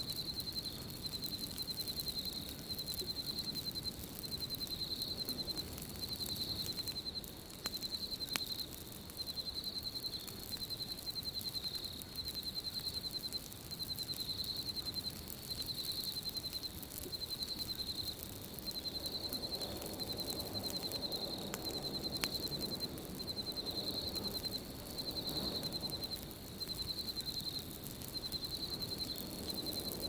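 Looped night ambience: high-pitched insect chirping in short repeated trills, over a low rush of wind that swells in the second half, with a few faint crackles from a campfire.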